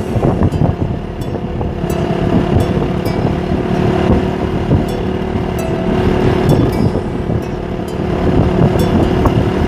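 Bus running with a continuous rumble of engine and road noise and a faint steady whine underneath.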